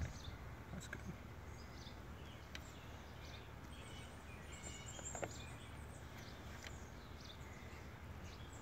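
Quiet outdoor ambience with faint, scattered bird chirps and a few soft clicks.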